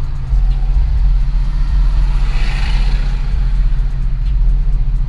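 Dodge Charger R/T's 5.7-litre HEMI V8, fitted with a cold air intake, droning steadily as the car drives. A rushing noise swells and fades about halfway through.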